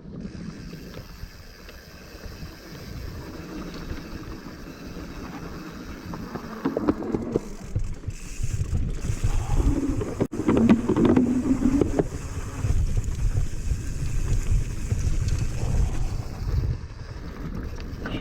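Wind rushing over the microphone while a hardtail mountain bike rolls down a rough dirt trail, tyres and frame rattling; it grows louder and rougher from about six seconds in, as the ride picks up speed over bumpy ground.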